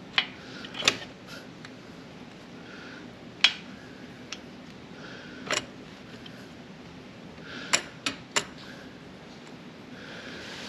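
Scattered sharp metallic clicks and clinks of hand tools and shifter parts being handled during a motorcycle heel-toe shifter install: about seven separate knocks at irregular intervals, over a faint steady hum.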